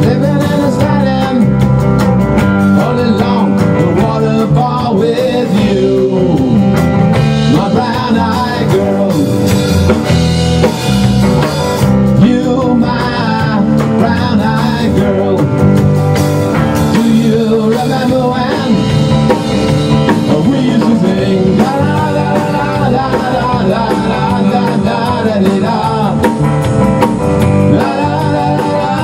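Rock band playing live: drum kit and electric guitar, with a melodic line bending up and down in pitch over the beat during a stretch without lyrics.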